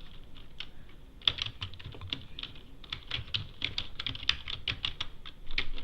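Computer keyboard typing: a few scattered keystrokes, then from about a second in a fast, steady run of key clicks.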